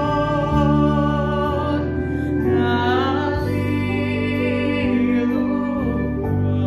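A young male voice sings a slow song solo, holding long notes with vibrato, over an instrumental accompaniment.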